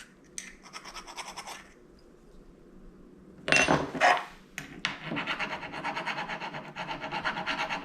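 A tool scraping a small metal part to see whether it is brass or only looks like brass; the scratch shows steel. There is a short burst of scraping, two harder scrapes, then quick back-and-forth scraping at about four to five strokes a second.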